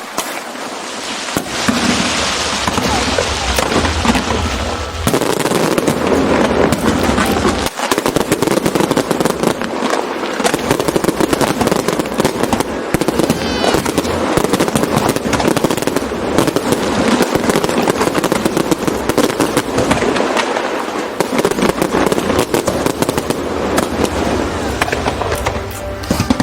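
Aerial fireworks display: a dense, continuous barrage of crackling bursts and bangs, with a brief rising whistle about halfway through.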